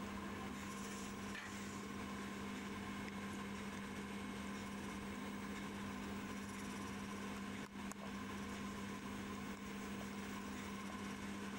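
A steady hum with a fainter, higher tone over a constant hiss. It drops out briefly about two-thirds of the way through.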